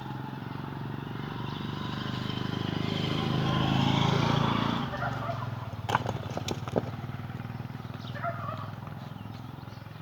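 A motor vehicle's engine passing by, growing louder to about four seconds in and then fading. A few sharp knocks follow about six to seven seconds in.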